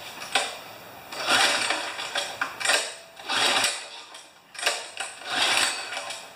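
Recoil pull-starter on a pressure washer's small gasoline engine being pulled repeatedly, about once every two seconds, each pull a rasping whirr of rope and flywheel; the engine cranks but does not catch.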